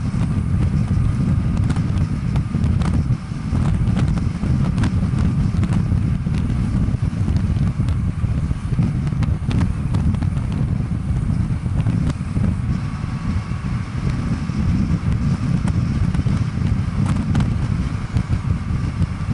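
Wind buffeting the microphone of a camera on a bicycle descending a mountain road at speed: a loud, steady low rumble, with scattered light clicks from the road surface.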